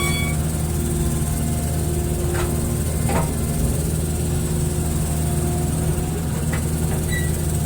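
Hitachi hydraulic excavator's diesel engine running steadily with a low drone, with two short knocks about two and a half and three seconds in.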